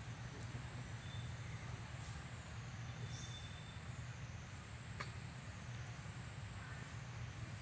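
Steady low rumble of outdoor background noise, with a faint click about five seconds in.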